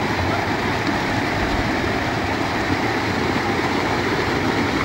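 A rocky mountain stream rushing steadily over a small cascade.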